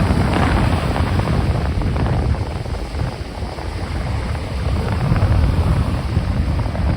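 Ocean waves washing in, easing off a little in the middle and building again, with wind buffeting the microphone.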